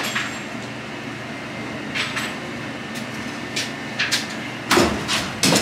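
A few sharp knocks and clatters, the loudest two near the end, over a steady low rumble.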